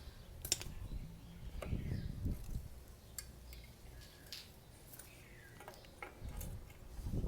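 Scattered metallic clicks and clinks, with a few duller knocks, from tools and drum-brake parts as the rear brake shoes and their return springs are worked into place.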